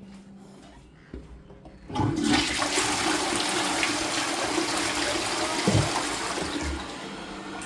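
Toilet flushing: a loud rush of water starts suddenly about two seconds in and eases off slightly near the end.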